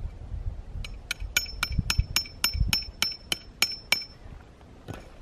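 A tent stake being hammered into hard ground: about a dozen quick, ringing strikes, about four a second, lasting about three seconds, followed by a couple of softer knocks near the end.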